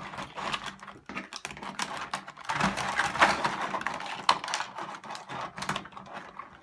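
Toy packaging being handled and unpacked: a run of irregular clicks, taps and rustles of plastic and cardboard as pieces of a toy play set are taken out of the box.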